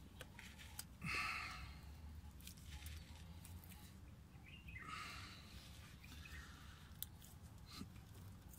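Faint scraping and rustling, with a few light clicks, as a small screwdriver is wedged under the plastic clip of a fuel-line connector on a fuel filter to release it. Two short scraping rustles stand out, about a second in and again about five seconds in.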